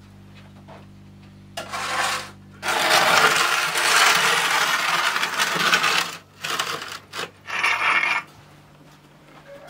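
Metal baking tray of sausages scraping and grating across the brick hearth of a wood-fired masonry oven as it is pushed in: a short scrape, then a long rasping slide of about three seconds, then a few shorter scrapes.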